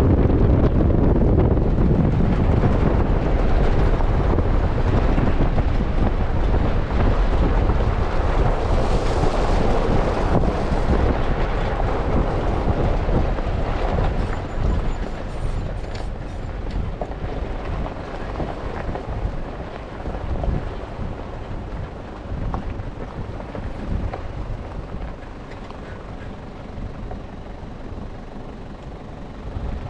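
Wind buffeting the microphone held out of a moving 4x4's window, over the tyre and engine noise of driving on a gravel road. The rush is loudest in the first half and eases after about fourteen seconds.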